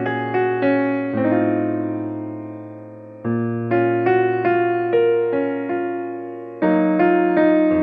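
Background music: a gentle keyboard tune in a piano sound, with struck notes dying away over held bass notes.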